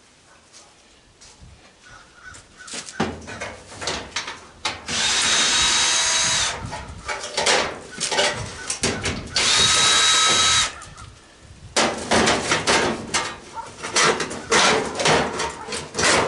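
Power drill running in two steady bursts of about a second and a half to two seconds each, with clattering and knocking of metal parts before, between and after.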